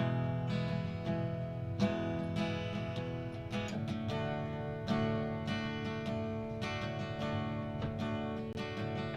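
Acoustic guitar strummed in a song intro, moving between E major and D major chords, with the chord changing about four seconds in.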